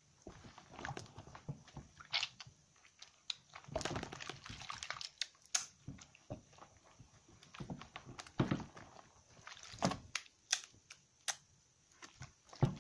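Slightly soaked bars of soap, a mix of laundry-soap pieces pressed together, being squeezed and rubbed in wet soapy hands over a basin of suds: irregular wet squelches, smacks and small clicks of the lather.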